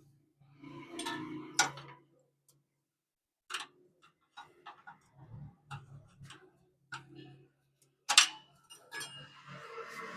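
Scattered clicks and small clinks at an uneven pace, with a sharp knock about a second and a half in and another, louder one about eight seconds in.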